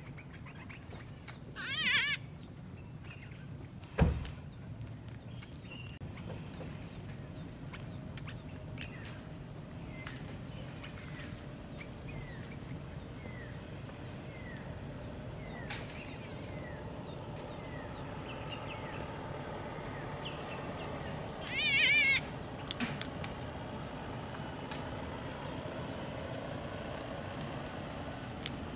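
Crowned hornbill giving a loud, quavering whistled call twice, about twenty seconds apart. A single sharp knock comes about four seconds in, and faint short falling chirps run between the calls.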